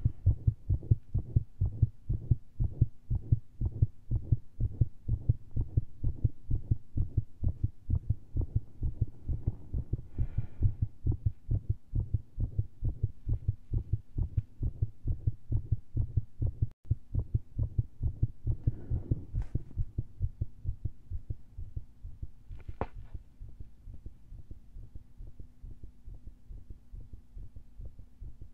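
Fast, very irregular human heartbeat heard through a stethoscope, raised by a large dose of caffeine and straining, with skipped beats (PVCs). A few brief scratchy noises come through, and the beats grow fainter about two-thirds of the way in.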